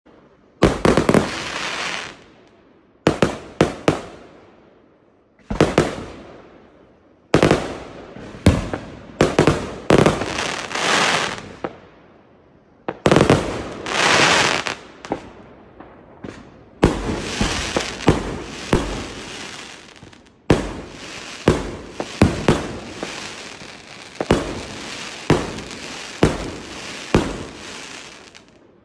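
Aerial fireworks going off: a run of sharp bangs from bursting shells, each trailing into crackle, spaced out at first and coming thick and almost without pause in the second half.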